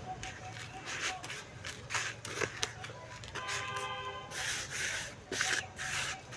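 Dry chunks of dirt or charcoal crumbling and crushing in the hands, a series of short crisp crunches that come thicker and louder about two-thirds of the way in.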